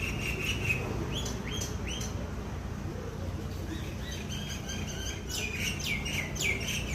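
Myna bird calling: a held whistle, then a few short notes sliding down in pitch, a run of chattering notes, and a quick series of sharp descending calls near the end.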